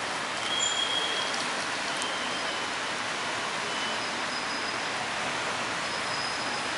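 Steady hiss of outdoor background noise, with a few faint, short, high whistle-like tones over it.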